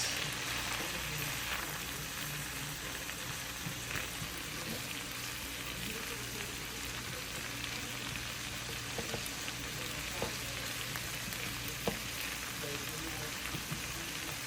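Onions frying in butter and garlic-ginger paste, sizzling steadily in the pan, with a few light clicks.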